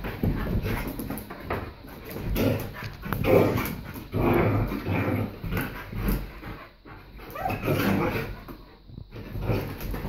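A greyhound and a black Labrador puppy play-fighting, with irregular bouts of dog vocalising and scuffling on bedding. The loudest burst comes about three seconds in.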